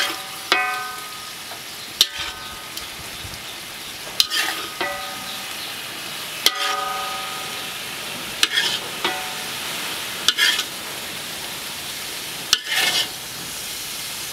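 A metal ladle scraping and knocking on a large metal wok while food stir-fries, and later scooping it into a bowl. Steady frying sizzle runs underneath, and about ten sharp knocks, several of them leaving a short metallic ring, come through it.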